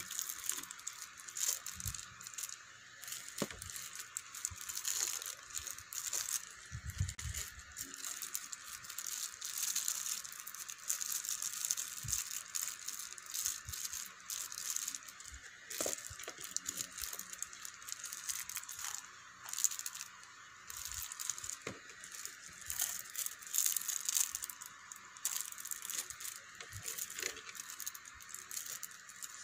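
Crinkling of clear plastic bags and blister packaging, with small plastic action-camera mounts clicking and rattling as they are handled.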